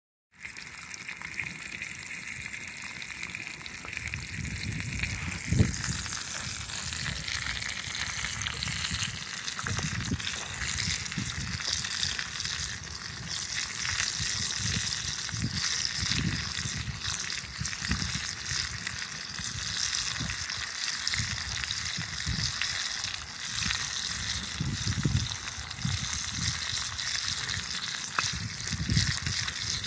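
Bacon sizzling in a cast-iron skillet: a steady hiss of frying fat, with irregular low thumps underneath, the loudest about five and a half seconds in.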